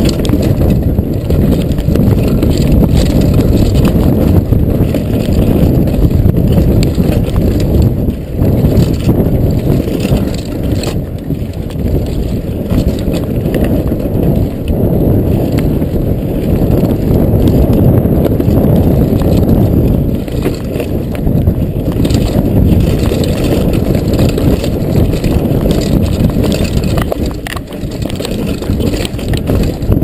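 Mountain bike ridden fast down a rough dirt trail, heard from a chest-mounted camera: a loud, continuous low rumble of tyres on dirt and wind on the microphone, with scattered knocks and rattles from the bike over bumps.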